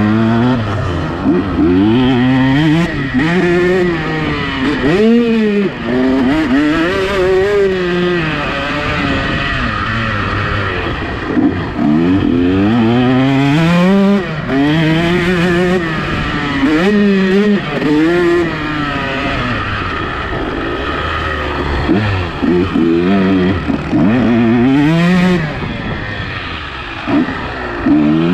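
KTM two-stroke motocross bike engine running hard, its pitch rising and falling again and again as the throttle is opened and closed through the gears.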